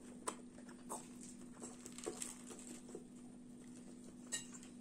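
Quiet eating sounds at a table: hands handling gözleme flatbread and a few light clicks and taps, the sharpest one about four seconds in, over a faint steady hum.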